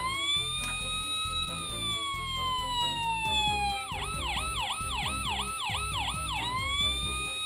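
Toy fire engine's electronic siren, set off by its roof button: a slow wail rising and falling, switching about four seconds in to a fast yelp of about three cycles a second, then back to the wail near the end.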